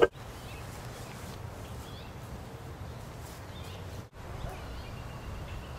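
Quiet outdoor ambience: a low steady rumble with faint bird chirps scattered through it, after a short sharp knock at the very start.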